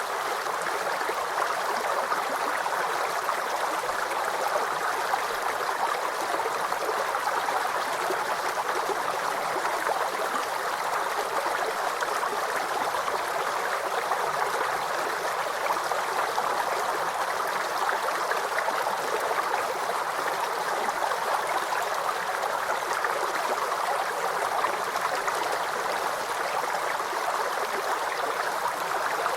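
A river flowing and rushing steadily over its bed, an unbroken hiss and splash of moving water.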